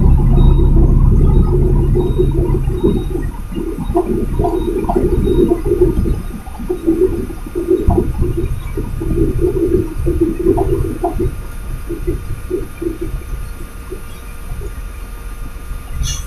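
Loud, rushing rumble of a container truck on the move, heard from the cab: engine, road and wind noise. It is heaviest in the first few seconds, then flutters and eases off.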